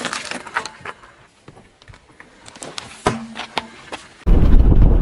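Car tyre rolling slowly over asphalt, small grit crackling and popping under it. About four seconds in, a loud low rumble sets in as the car comes close.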